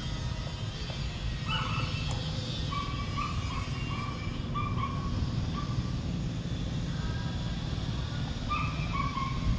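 Steady low rumble, with a series of short, clear animal calls repeated through the middle and again near the end.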